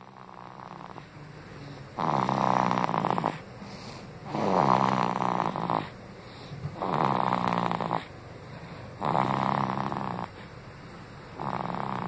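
A sleeping baby snoring in a steady rhythm, one snore every two to two and a half seconds, each lasting about a second.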